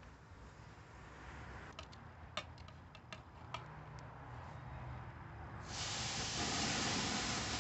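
A few light clicks, then about five and a half seconds in an oil-marinated skirt steak goes onto a hot charcoal grill grate and starts sizzling loudly and steadily.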